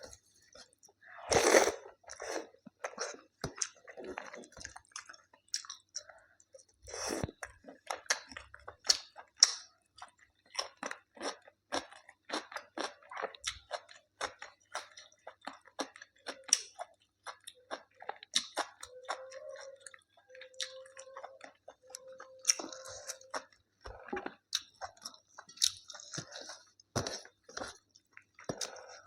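A person chewing and eating food close to the microphone, with a steady stream of wet mouth clicks, smacks and some crunching.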